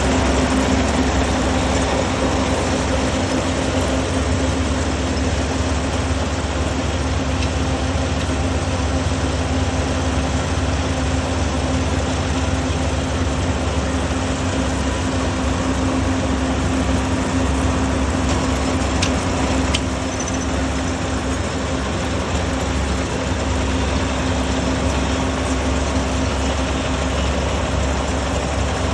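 Rice combine harvester's engine running steadily: a constant low drone with a steady hum over it, even throughout.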